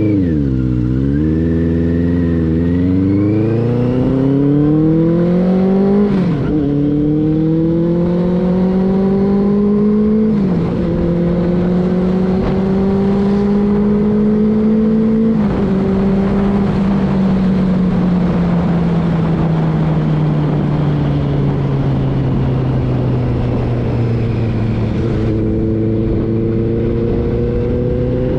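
Benelli 600i's inline-four engine accelerating through the gears on a temporary aftermarket exhaust: the note rises, drops sharply at upshifts about six and ten seconds in, climbs again, then falls away slowly as the bike eases off, picking up once more near the end.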